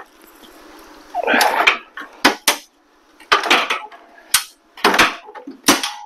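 The cut-out steel bar grid from the front of an IBC tote cage clanking and rattling against the cage as it is worked loose and pulled away: a string of sharp metal clanks with short pauses between them.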